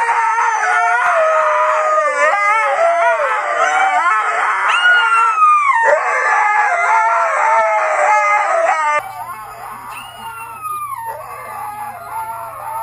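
Husky howling in long, loud howls whose pitch glides and wavers. After a sudden cut about nine seconds in, a quieter dog howl follows, falling in pitch.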